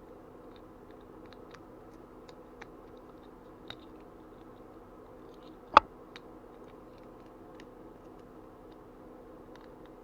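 Small plastic parts of a whistle-activated key-finder keychain being handled and fitted back together: scattered faint clicks and ticks, with one sharper click about six seconds in.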